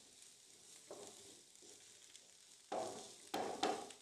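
Wooden spatula scraping and stirring mashed potato, onion and pea paste around a hot non-stick pan, over a faint sizzle of frying. There are a few scraping strokes, the two loudest near the end.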